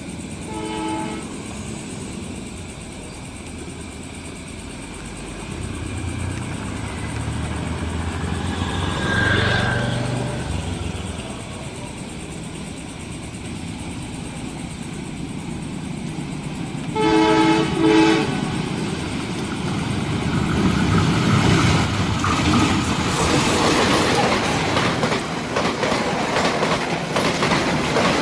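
Diesel-electric locomotive of an Indonesian passenger train approaching, sounding its horn briefly just after the start and again in two louder blasts about 17 seconds in. It then runs past with its coaches in a loud rumble, the wheels clicking steadily over rail joints.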